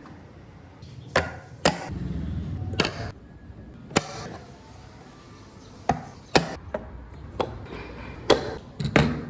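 Wood being struck with a hand tool: about ten sharp knocks at an irregular pace, some in quick pairs.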